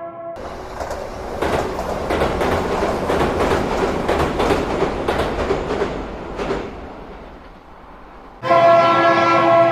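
Toy steam locomotive's train sounds: a hissing chug with a quick beat that fades away, then a loud train whistle that starts suddenly near the end. The tail of another whistle is heard at the very start.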